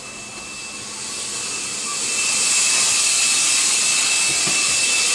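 Shower spray running: a steady hiss that grows louder from about a second in and then holds, with a thin high whistle through it.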